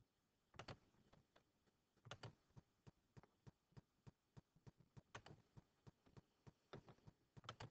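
Faint clicking of a computer mouse: several sharp clicks, some in quick pairs, with lighter ticks in between.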